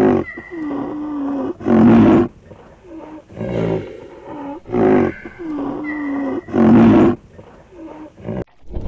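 Large animal calls: drawn-out pitched calls alternating with short, loud, harsh calls. The same sequence repeats about every five seconds, so it plays twice, like a looped recording.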